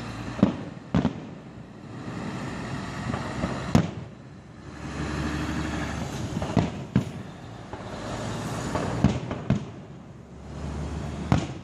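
Fireworks display: about eight sharp bangs of shells bursting at uneven intervals, with a rushing, crackling wash of sound between them.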